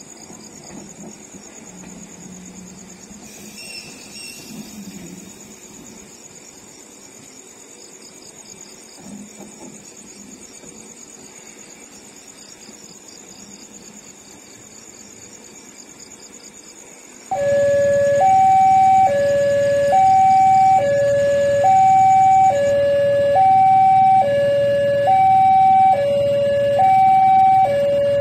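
Faint steady background with a thin high whine. Then, about two-thirds in, an Indonesian railway level crossing warning alarm starts abruptly and much louder: an electronic two-tone signal alternating between a low and a high note, each held about a second.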